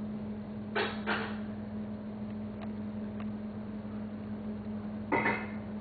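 Cats licking each other's fur: a few short rasping tongue strokes, two close together about a second in and a louder cluster near the end, over a steady low hum.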